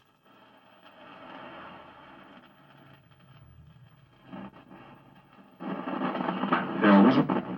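Static hiss from the speaker of a 1957 General Electric vacuum tube television. About five and a half seconds in, the received audio cuts in much louder and crackling. The crackly reception is taken as the sign of a dirty tuner that needs cleaning.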